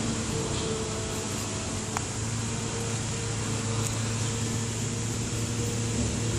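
Steady mechanical hum: a low drone with a fainter higher tone over an even rush of noise, with a faint click about two seconds in.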